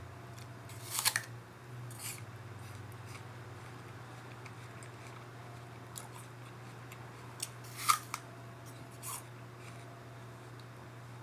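Crisp bites into a raw apple: two loud crunches, about a second in and again near 8 seconds, each followed by a softer crunch of chewing, over a steady low hum.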